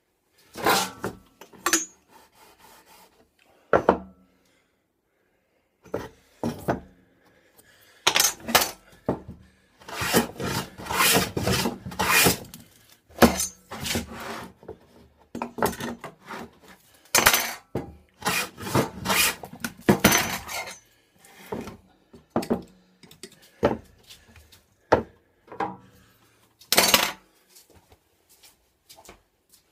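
Metal bench plane being pushed along a reclaimed wooden beam: a run of rasping strokes, each about a second long, with short pauses and a few knocks of tools between them.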